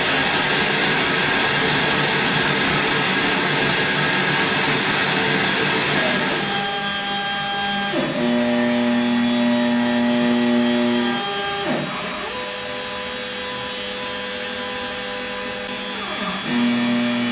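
CNC router machine noise: a broad hiss of the machine running, then steady whining tones from the axis stepper motors. The whine dips and comes back three times as the axes slow, reverse and speed up again.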